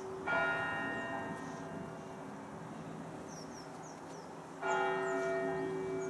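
A large church bell in a monastery bell tower struck twice, about four seconds apart, each stroke ringing on and slowly dying away, its deep hum carrying through to the next stroke.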